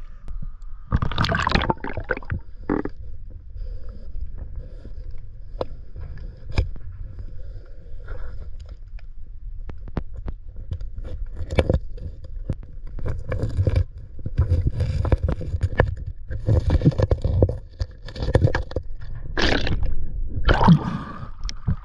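A fishing magnet hauled in on its rope, dragging and catching on rocks: irregular scraping, knocking and clunks over a low rumble.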